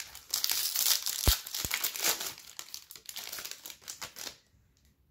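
Plastic trading-card pack wrapper being torn open and crinkled for about four seconds, with two low thumps about a second and a half in.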